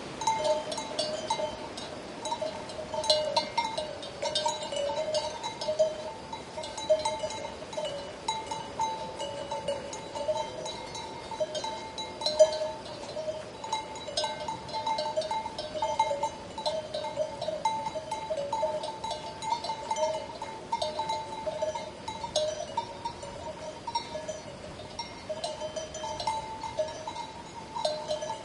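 Bells on a grazing flock of sheep clanking continuously and irregularly, ringing at two steady pitches.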